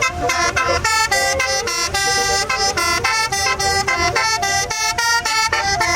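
Tour bus basuri musical horn (telolet horn) playing a fast tune: a run of loud horn notes that change pitch several times a second.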